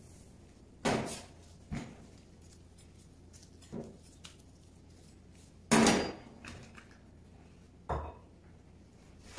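Items knocking down onto a stainless steel worktop, among them a chef's knife being laid down: five sharp knocks, the loudest a little past halfway and the last near the end.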